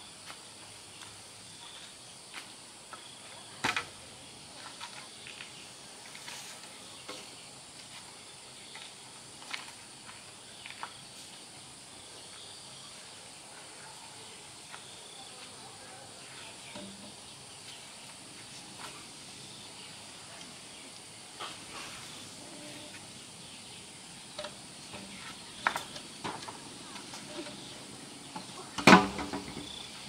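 Steady insect chirring with scattered light knocks and clicks of handwork over it, and a loud clatter of several quick knocks about a second before the end.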